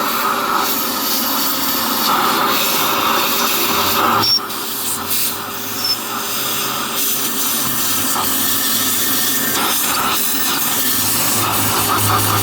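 Shop vac running steadily, its suction hissing as it vacuums debris from around the spark plug wells; the sound dips and wavers for a couple of seconds about four seconds in as the nozzle is moved.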